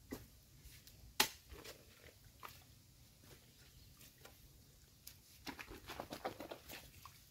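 Hoe and long-handled spade striking and scraping into wet, muddy soil: separate crunching chops, the loudest about a second in, then a quick run of crunching strikes near the end.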